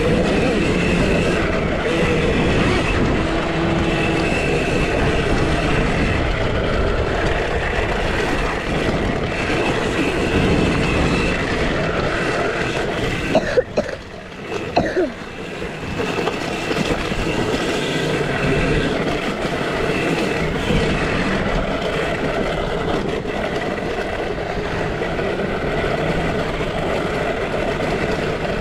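2023 KTM SX-E5 electric youth motocross bike under way, with a steady high electric-motor whine over chain, tyre and wind noise. About halfway through the noise briefly drops away, with a few sharp knocks, before the riding sound picks up again.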